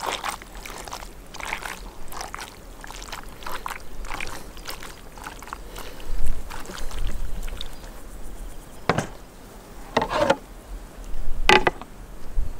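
Hands squeezing and turning wet chunks of raw heart in marinade in a plastic tub, an irregular wet squelching. Near the end come a few louder knocks as a wooden lid is put on the tub.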